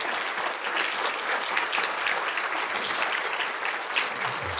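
Audience applauding steadily: many people clapping at once, the award recipients having just been called to stand.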